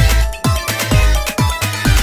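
Background music: an upbeat electronic track with a steady kick-drum beat, about four beats a second.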